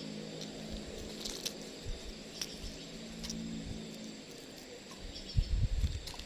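Outdoor ambience with insects making a steady high-pitched drone, a faint low hum and scattered small clicks. Low rumbling buffeting comes in about five seconds in.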